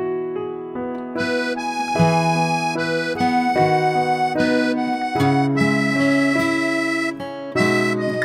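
Background music: a melody of held notes in a reedy, accordion-like tone over chords, changing every half second or so.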